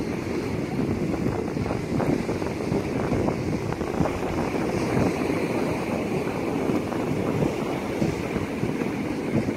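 Wind buffeting the microphone in a steady, gusty rumble, over ocean surf breaking on the beach.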